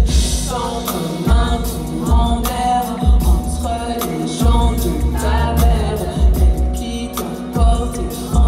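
Live pop concert: a woman singing into a microphone over a deep, pulsing bass line and drum hits, amplified through the venue's sound system.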